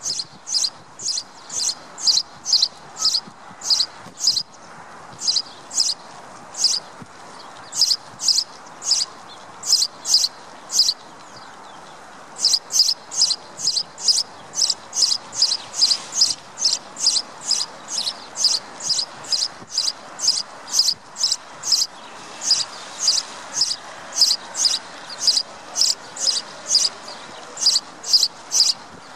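A sparrow chirping over and over, short high chirps about two a second, with a brief pause about eleven seconds in, over a steady faint background hiss.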